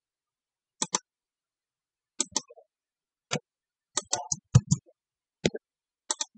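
Computer mouse clicking a dozen or so times, mostly in quick pairs, while picking points for a dimension in a CAD drawing.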